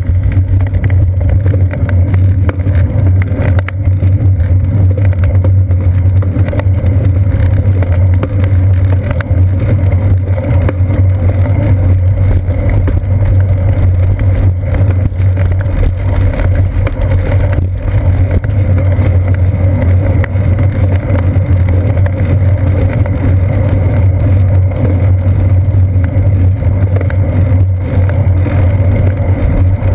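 Steady, loud rumble of a bicycle ride picked up by a seat-post-mounted GoPro Hero 2 in its housing: tyres rolling on pavement, frame vibration and wind on the camera, unbroken throughout.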